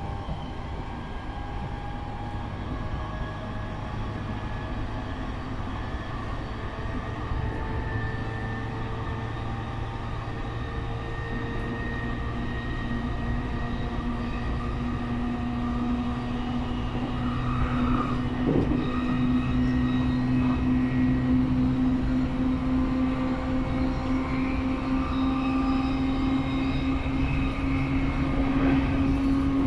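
Running sound inside an E531 series electric train: wheel and rail rumble with a motor whine that slowly rises in pitch and grows louder as the train gathers speed. A single knock comes about two-thirds of the way through.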